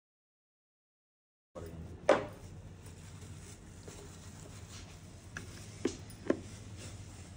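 Dead silence for about a second and a half, then a quiet kitchen with a few sharp knocks and clinks of kitchenware being handled: a louder one soon after the sound comes in, and two close together later on.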